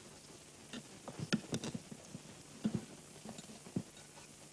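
Light clicks and knocks of things being handled on a table, likely glassware: a quick cluster a little after a second in, then two single knocks later.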